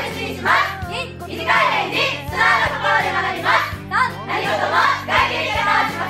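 Group of young women singing together in phrases, over held low accompanying notes that change about halfway through.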